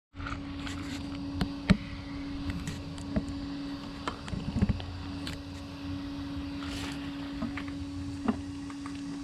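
A small electric motor, most likely the model fishing boat's drive, hums at a steady pitch over a low rumble, with scattered sharp clicks and knocks; the loudest click comes a little under 2 seconds in and a cluster of knocks comes around the middle.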